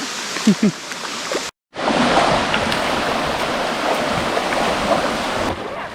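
Creek water rushing steadily over rocks, cut off briefly about a second and a half in and then resuming.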